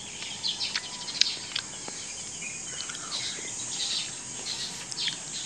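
Dawn chorus of small birds: many short scattered chirps over a steady high hum of insects, with one sharp tick about a second in.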